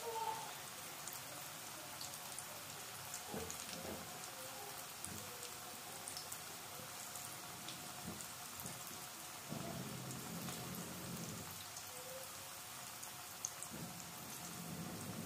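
Battered potato fingers deep-frying in oil in a wok: a steady, fine crackle and sizzle with scattered tiny pops. A low rumble comes in for about two seconds past the middle and again near the end.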